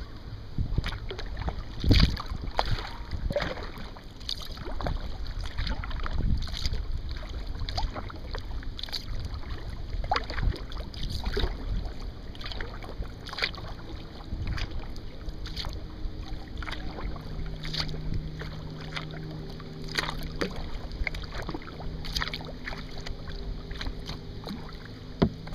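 Kayak paddle strokes: the blades dipping and splashing in the lake about once a second, with water dripping between strokes. From about halfway a faint steady low hum joins in.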